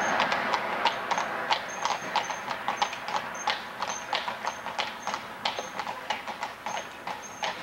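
Horses pulling a wagon clip-clop along a paved road, a steady run of hoof strikes about four a second, each with a brief high ring, growing fainter as the wagon moves away.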